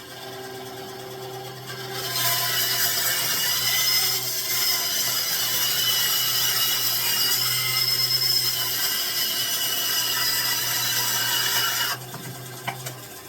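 Consumer-grade benchtop bandsaw running, its blade cutting through a 2x4 for about ten seconds. The cutting noise starts about two seconds in and stops abruptly near the end, while the motor hum carries on.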